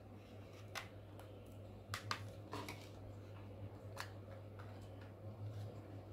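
Plastic snap-fit clips of an Intex 11000 mAh power bank's casing clicking as a plastic card is worked along the seam to pry the shell apart: about five short, sharp clicks over a low steady hum.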